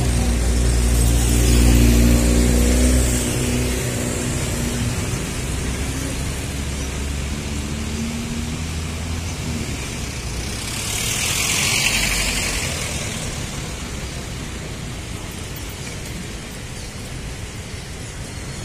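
Road traffic by the riverside road. A motor vehicle's engine runs close by and loud for the first three or four seconds, then fades. About eleven seconds in, another vehicle's rush swells and dies away over a steady traffic rumble.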